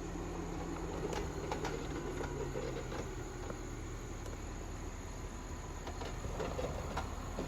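Off-road vehicle's engine running at low, steady revs, its tone dropping slightly in the first couple of seconds, with scattered sharp clicks and cracks over it.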